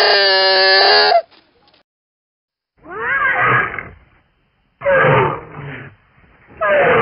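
Speculative, sound-designed vocalizations of a juvenile Tyrannosaurus rex. A buzzy pitched call lasts about a second and a half at the start. After a pause come three rougher, raspy calls of about a second each, their pitch sliding downward.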